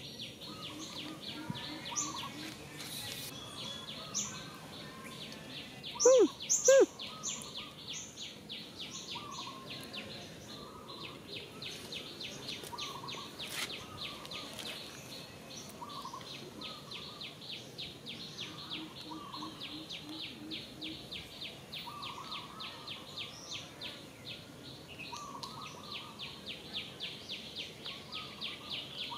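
Rapid, evenly repeating insect chirping that runs steadily, with scattered bird chirps over it. About six seconds in come two short, loud calls, each rising and falling in pitch.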